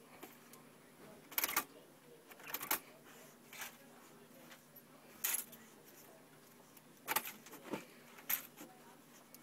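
A dog nosing a cloth over a bunch of keys on a desk: several short bursts of keys jingling and fabric rustling, with pauses between them.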